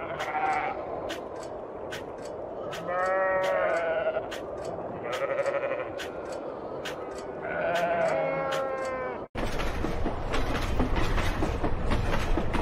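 Sheep bleating, several long, wavering calls. Then a sudden cut to a freight train's cars passing at speed on the rails, a dense, louder rushing noise with a deep rumble.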